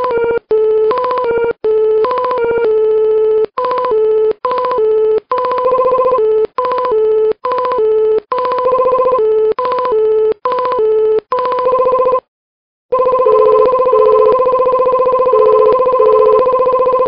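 Buzzy electronic tone with a rapid trill like a telephone ringer, stepping back and forth between two pitches about a tone apart in short choppy notes. After a brief gap about three-quarters through, it carries on in longer held notes.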